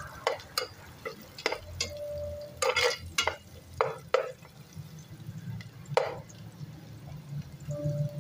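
Large metal spoon stirring and scraping food in a metal cooking pot, with about nine irregular clanks against the pot, most in the first half, as the food fries.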